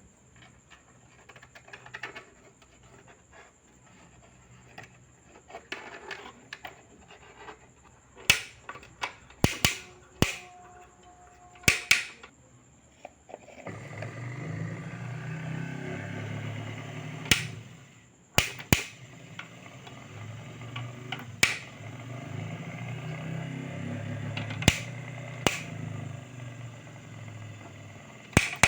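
A few sharp clicks and knocks of parts being handled, then a mixer grinder's electric motor switched on about halfway through and running steadily. It stops briefly and starts again.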